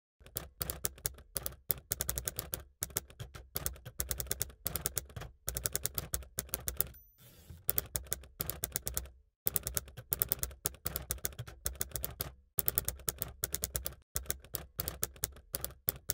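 Runs of rapid, sharp clicks like typewriter keys, many a second, in bursts of about a second broken by short dead silences. About seven seconds in, a brief hiss with a thin high tone.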